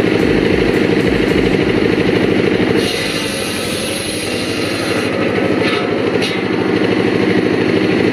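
An engine running loudly and steadily with a pulsing low note. About three seconds in, the sound changes: the low end drops back and a hiss comes up for a couple of seconds.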